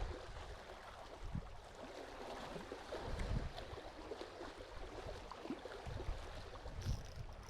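Faint water lapping and gurgling, with a few soft knocks.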